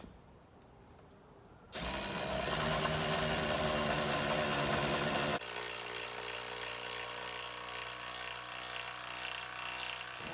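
Power drill running steadily on wood, starting about two seconds in; its pitch drops about five seconds in and it keeps running.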